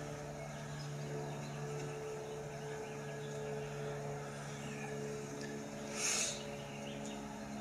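Soft sustained background music, low held notes that change about a second and a half in and again near five and a half seconds, with a brief hiss about six seconds in.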